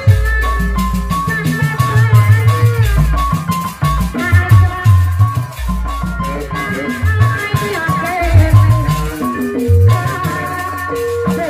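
Live Sundanese jaipongan music in the bajidoran style: kendang drums beating a busy rhythm under a melody of short repeating notes.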